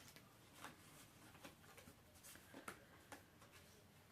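Near silence with a few faint light ticks and rustles, typical of a wrapped candy packet being handled.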